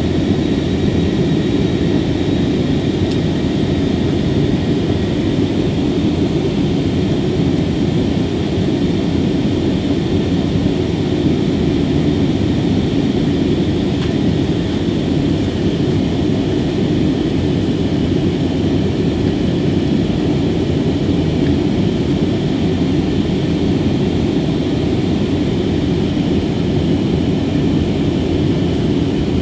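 Airbus A321 cabin noise during the climb: a steady roar of engines and rushing air, even throughout, with a faint high hum over it.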